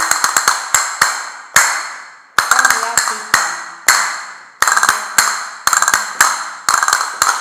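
Castanets played in a practice pattern: a quick roll of clicks followed by a few single strokes. The phrase repeats about every two seconds.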